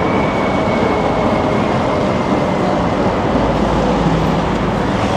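Steady city street traffic noise, with a deeper low rumble from a passing vehicle coming in about three seconds in.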